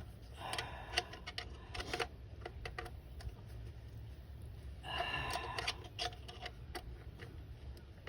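Socket ratchet clicking as intake manifold bolts are tightened, in two short spells about a second in and about five seconds in, with scattered small clicks and knocks of tool handling between.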